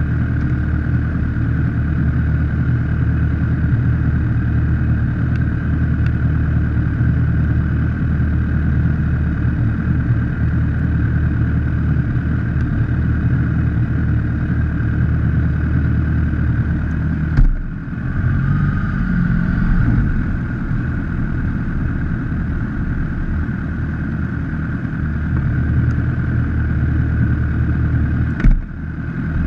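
Motorcycle engine idling steadily, heard close up from a camera mounted on the bike. A sharp knock a little past halfway is followed by a brief rise in the engine note, and a second knock comes near the end as the bike moves off.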